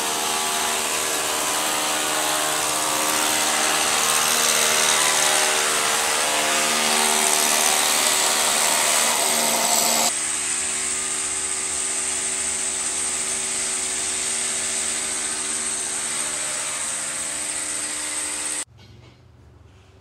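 Hammer drill boring anchor-stud holes into a concrete floor, running steadily under load. Its sound changes abruptly about halfway through, and it stops suddenly about a second before the end.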